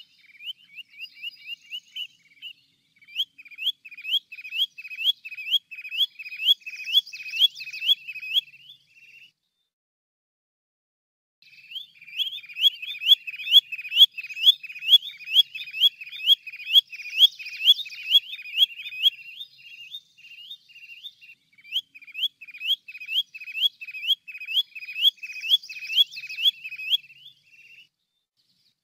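Sandpiper calling: long runs of short, high, hooked whistled notes repeated about three times a second, in four bouts with brief pauses between them. The first bout is quicker.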